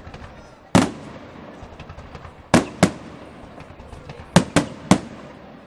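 Aerial firework shells bursting: six sharp bangs, one near the start, a pair around the middle and three in quick succession near the end, with smaller pops between.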